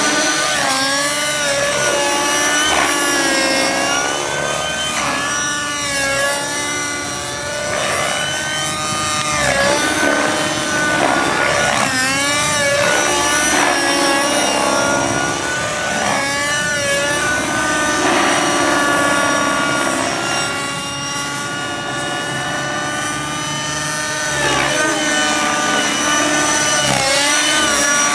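Align T-Rex 600 Nitro RC helicopter in aerobatic flight, its two-stroke nitro glow engine and rotor running at high revs. The engine note rises and falls again and again, dipping somewhat in loudness twice, around a quarter of the way in and again past two-thirds.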